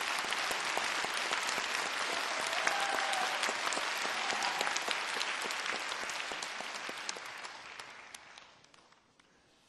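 Large audience applauding: dense clapping that dies away over the last couple of seconds.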